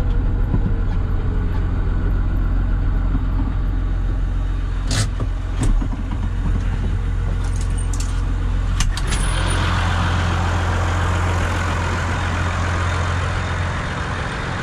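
Massey Ferguson 6180 tractor with a straight-pipe exhaust running steadily under way, a deep engine drone heard from the cab. A few sharp clicks or rattles come about five and nine seconds in, and a louder hiss joins the drone from about ten seconds in.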